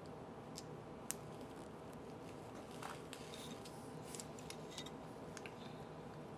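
Scattered small clicks and taps of hard plastic as the casing of a LeapFrog Tag reader pen is worked apart and its base slid off, over a steady low background hum.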